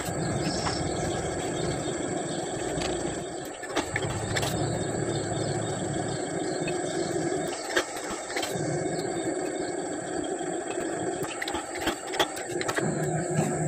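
Machine-tool motor and drive running steadily, with a few sharp metallic clicks.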